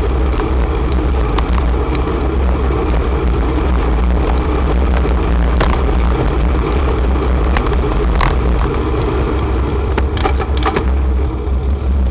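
Riding noise from a bicycle on a city road: a heavy, steady rumble of wind on the microphone over road and traffic noise, with scattered small clicks and rattles.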